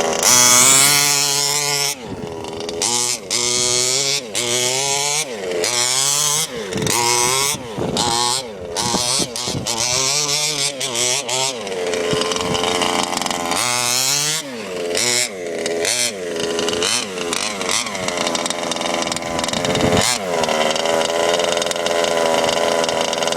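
Small two-stroke engine of an FG large-scale RC model, revved up and down again and again in quick throttle blips, then running steadier near the end. The carburettor is set rich.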